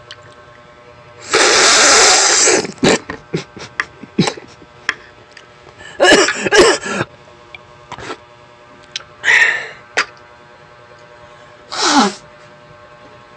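Loud mouth and breath noises close to the microphone: a long noisy burst about a second in, then scattered clicks and three shorter bursts, the last ending in a falling pitch.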